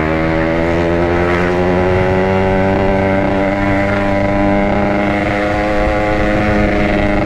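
Yamaha RX-King two-stroke single running through a Packing Power aftermarket exhaust, held at a steady throttle. Its note rises slightly over the first couple of seconds, then stays even.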